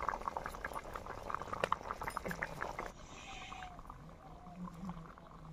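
Fish curry boiling in a wok after water has been added to simmer it: thick bubbles pop in quick, irregular clicks, thinning out after about three seconds. A few faint animal calls come near the end.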